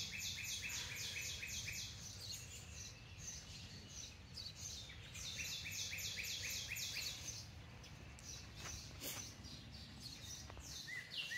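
A songbird singing fast trills of quick, repeated high notes, about seven notes a second, in three bouts of roughly two seconds each: at the start, about five seconds in, and near the end. A steady low background hum runs underneath.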